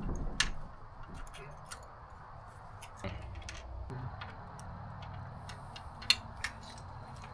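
Scattered sharp metallic clicks and clinks of a wrench and bolts as a Yamaha F300 outboard's lower unit is unbolted and worked loose, the sharpest click about six seconds in.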